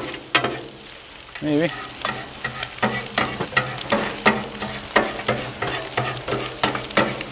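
Metal spatula and bench scraper chopping fried eggs on the steel top of a Blackstone griddle: repeated sharp clacks of metal on metal, about three a second, over a steady frying sizzle.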